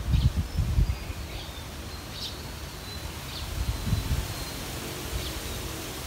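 Wind buffeting the microphone in low gusts, strongest near the start and again about four seconds in, with faint high bird chirps scattered over it.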